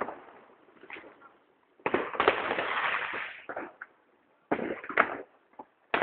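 Fireworks going off in a string of sharp bangs and pops. A loud burst about two seconds in trails into a second or so of crackling hiss, with more pops and bangs after it.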